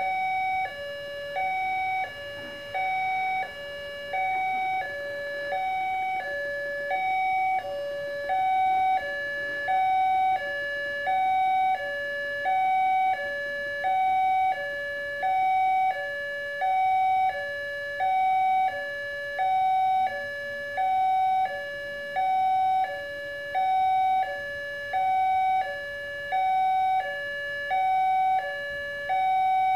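Railway level-crossing warning alarm sounding from the loudspeaker on the crossing signal post: an electronic two-tone high-low sound alternating steadily, about one high-low cycle every second and a half, warning that a train is approaching.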